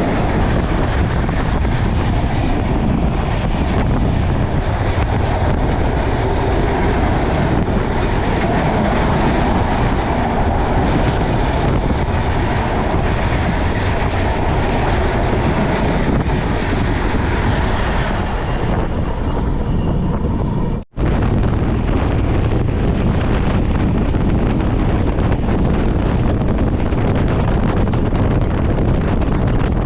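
Passenger train running at speed, heard from on board, with wind buffeting the microphone. The noise drops out sharply for a moment about two-thirds of the way through, then carries on unchanged.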